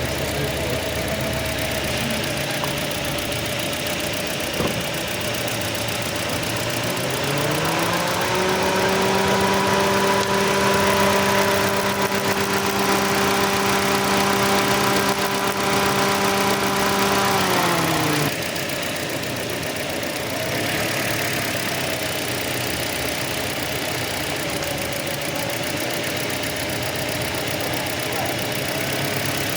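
Toyota Corolla's petrol engine idling, then revved up to a steady higher speed held for about ten seconds before dropping quickly back to idle.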